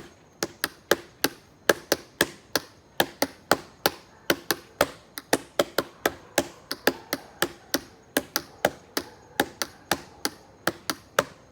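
A small table drummed as a percussion instrument: a steady rhythmic pattern of sharp knocks, about three or four a second.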